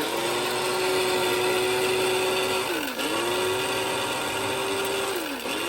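Shardor electric blade grinder's motor running with a steady whine as it grinds herbs. About three seconds in and again near the end the pitch drops and climbs back up as the push-down cover is let up and pressed again.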